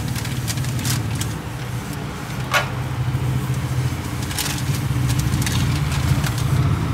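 Steady low rumble of moving air buffeting the microphone, with a few sharp clicks of metal tongs setting a skewer on the grill grate.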